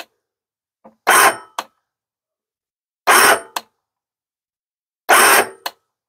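Powerwinch P92001 electric roof-lift winch running in three short bursts of about half a second, two seconds apart, each ending in a sharp click. The lower limit switch is cutting the winch off almost as soon as it starts, because its runtime is still set too short.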